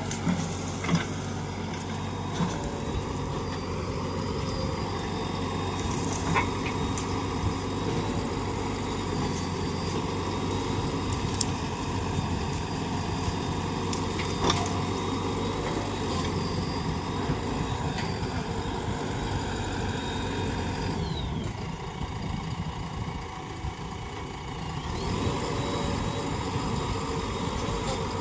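JCB 3DX backhoe loader's diesel engine running steadily while working, with a few sharp metallic knocks. About two-thirds of the way through, the engine speed drops, then rises again a few seconds later.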